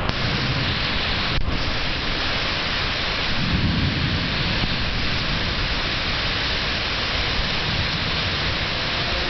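Steady heavy rain with a low rumble of thunder swelling about three to four seconds in.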